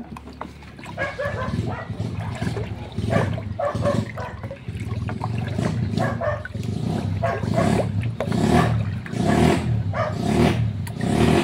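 Wooden paddle stirring homemade dishwashing-liquid mixture in a plastic bucket: repeated sloshing and churning swishes as liquid is poured into the thickening, foaming mix.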